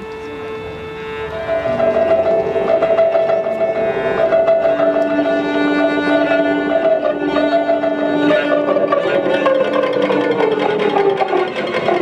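Free-improvised music for cello, shamisen and live electronics: long held bowed-string tones come in about a second in and grow louder, with one tone sliding slowly down in pitch in the second half.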